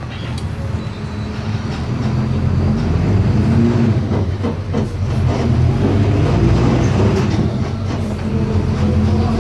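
Diesel engine of a Volkswagen 17.230 EOD bus chassis pulling under load, getting louder and rising in pitch over the first few seconds. It dips briefly about four and a half seconds in, then runs steadily.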